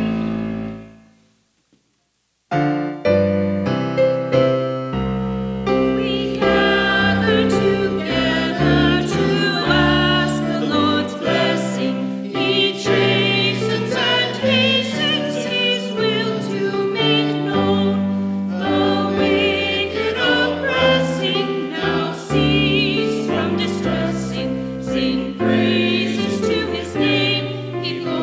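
Music fades out over the first second or so. After about a second of silence, electronic keyboard music begins with voices singing over it and carries on.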